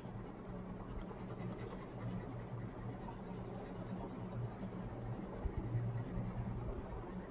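Coloured pencil scratching on paper in continuous back-and-forth shading strokes, over a low steady hum.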